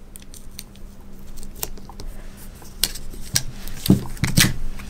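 Light clicks and taps of hands handling fabric and tape on a light-box worktop, with a couple of louder knocks about four seconds in, over a faint steady hum.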